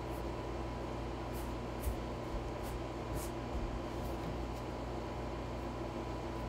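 Hands kneading potato gnocchi dough on a floured wooden counter: a few soft thumps and short brushing sounds as the dough is pushed down and folded, over a steady background hum.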